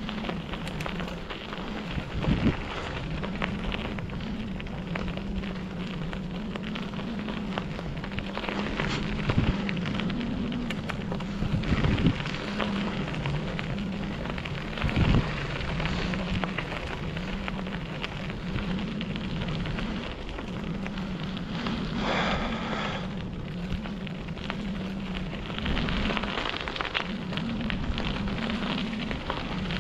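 Bicycle tyres rolling over a dirt and grass trail: a steady crackling crunch of grit under the tyres with a low wavering hum beneath, and a few sharp knocks as the bike hits bumps.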